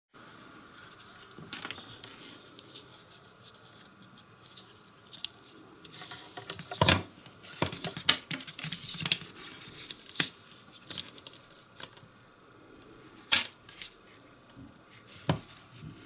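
Rustling and light clicking as a thin two-core power cord is pulled across a sheet of paper and handled. The rustle is busiest in the middle, and a few sharper knocks stand out.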